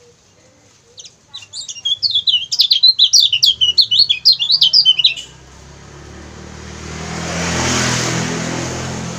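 Kecial kuning white-eye calling in a rapid run of sharp, high chirps for about four seconds. Then a passing vehicle's noise swells and fades.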